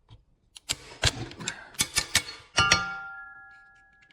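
Metal hand tools clicking and knocking while a nut is tightened on a bolt to draw up a rivet nut, then a sharp metallic clank about two and a half seconds in that rings on with a few clear tones, fading away over about a second and a half.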